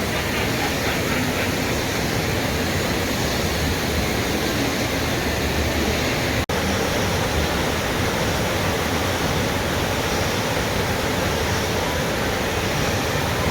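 Steady, even rushing noise with no distinct events, strongest in the low end; it drops out for an instant about six and a half seconds in.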